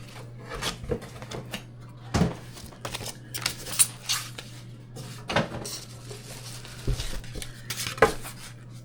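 Irregular clatter and knocks of hard kitchen items being handled, over a steady low hum.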